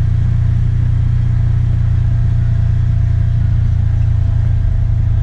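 Off-road utility vehicle running steadily as it drives along a rough dirt road, heard from on board as a constant low rumble with a faint steady drivetrain tone.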